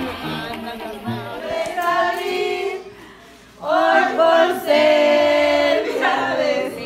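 Music for the first three seconds, then, after a brief dip, a group of people singing together loudly in long held notes.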